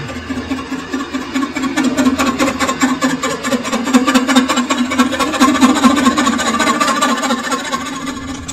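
Metal lathe turning a spoked stove-frame casting, the cutting tool scraping across the spinning part. A steady hum runs under a fast, even ticking.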